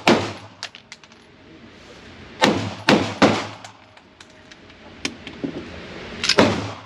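Taurus pistol firing: five shots with a short ring after each. The first comes at the very start, a quick three follow around the middle, and the last comes near the end.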